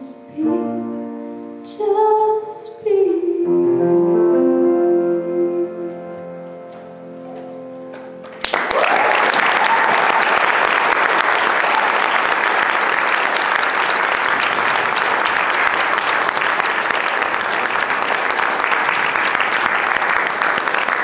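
A girl's solo voice and piano ending a song on long held final notes, then about eight seconds in an audience bursts into loud, sustained applause.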